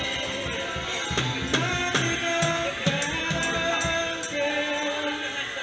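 Live church worship music: a band with drum kit and steady percussion playing while the congregation sings along.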